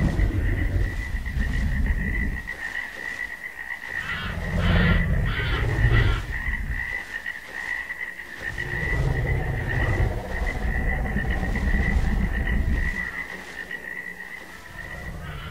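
Low, rough growls of an animated dragon's sound effect, coming in three long spells, over a thin steady high tone.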